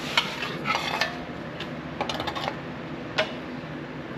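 Irregular metallic clanks and rattles of a steel sheet-metal strip being worked in a shrinker-stretcher to put a curve in it: single knocks, then a quick run of small clanks about two seconds in.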